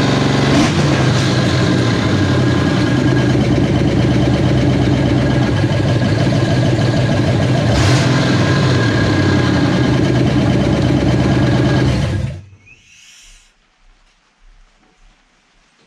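Freshly rebuilt Ford 302 V8 of a 1989 Mustang GT running steadily, then shut off about twelve seconds in; it cuts out abruptly.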